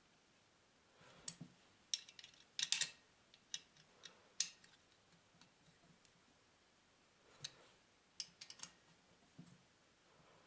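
Steel hex key clicking against the bolt heads and metal engine casing while chainsaw muffler bolts are tightened: light sharp clicks, one cluster in the first half and a second one later.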